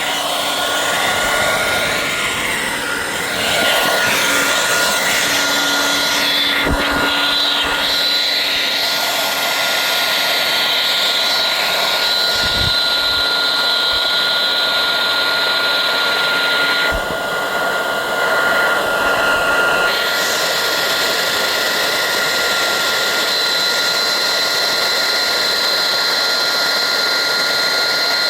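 Hand-held hair dryer blowing steadily, with a high fan whine over the rush of air, drying melted ice out of an electric car's charging port. A few light knocks are heard during it.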